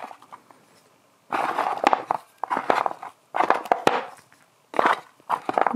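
Foil-wrapped chocolate eggs being rummaged and picked out of a wooden box by hand: rustling foil and light clacks of eggs against each other and the wood, in four short bursts starting about a second in.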